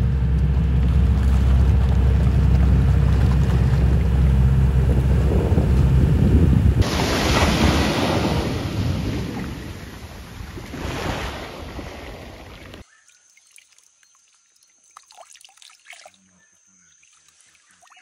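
A loud, steady low rumble for about the first seven seconds, then surf and splashing water that fade away about thirteen seconds in, leaving only faint small sounds.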